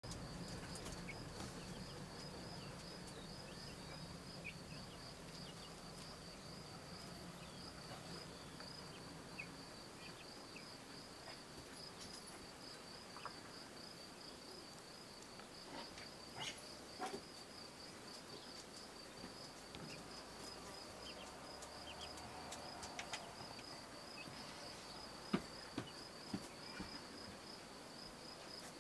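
A cricket chirping steadily, a faint high-pitched trill of rapid, even pulses, with a few soft clicks and rustles.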